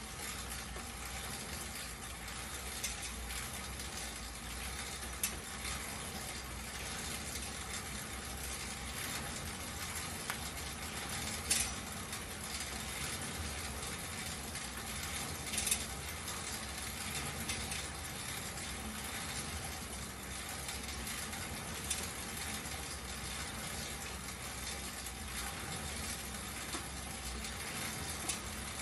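Schwinn air bike's fan wheel spinning as it is pedalled: a steady whirring rush of air, with a few sharp clicks from the bike's moving parts.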